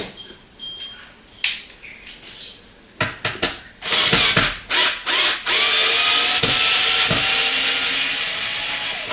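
A few handling clicks, then a power drill-driver running in several short pulses and then in one steady run of about three and a half seconds, removing the screws of a cover inside a dishwasher.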